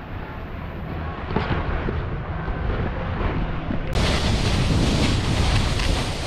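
Wind buffeting the microphone while snowboarding downhill, with the board's base and edges scraping over the snow. The rush gets suddenly louder about four seconds in.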